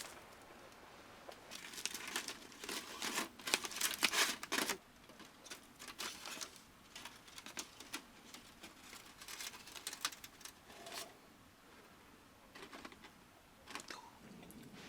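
Irregular rustling and crinkling of something being handled, loudest and busiest in the first few seconds, then thinning out to sparser rustles.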